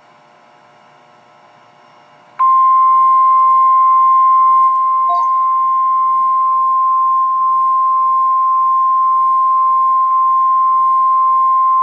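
Faint background hum, then about two seconds in a single loud, steady tone of about 1 kHz begins and holds without a break. It is the 1050 Hz warning alarm tone of NOAA Weather Radio, sounding ahead of a flash flood emergency message.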